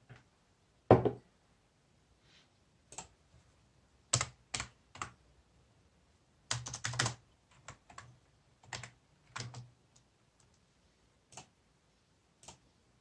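Keys pressed on a Casper desktop keyboard: scattered single keystrokes and a few short runs of clicks, not continuous typing. The loudest sound is one knock about a second in, as a glass is set down on the wooden desk.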